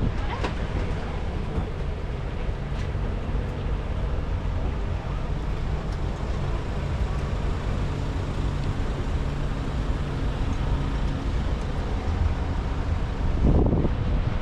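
Tourist road train's engine running steadily under way, with road noise and wind on the microphone.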